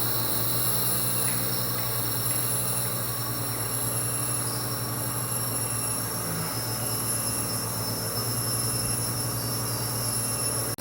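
Rainforest ambience of insects droning: several steady high-pitched whines held without a break, over a low steady hum.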